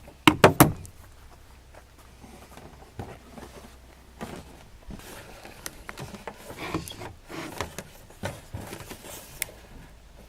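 Handling noise from small objects being moved: a cluster of loud knocks about half a second in, then scattered light clicks and rustles.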